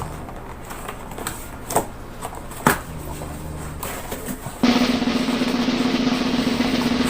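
A few sharp clicks from packaging being handled, then, about four and a half seconds in, a sudden loud, steady buzzing rasp that starts abruptly and keeps going.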